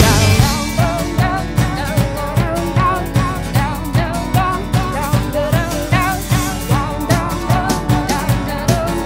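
Background music: an upbeat song with a steady drum beat about twice a second and a wavering melody line, with no sung words.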